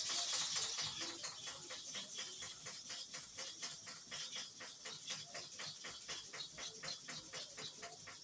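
Hair-clipper blade rubbed rapidly back and forth on a kerosene-wetted sharpening stone: a steady run of short scraping strokes, about five a second, loudest at the start.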